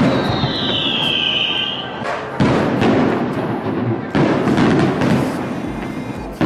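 Aerial fireworks shells going off: a few loud booms spaced a second or two apart, with a high falling whistle in the first two seconds and sparse crackling between the bursts.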